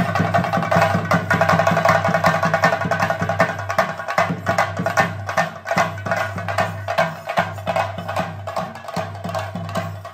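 Theyyam percussion: rapid, continuous chenda drumming in dense strokes over a steady held tone.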